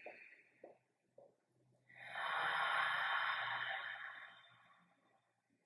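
A woman's slow, deep belly breathing: the end of an inhale at the start, then a long exhale beginning about two seconds in and fading away over about three seconds.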